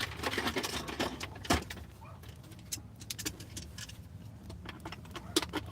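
Hands-on work noise: a run of clicks, rustling and clatter, with a sharp knock about a second and a half in and a few more clicks near the end, over a steady low hum.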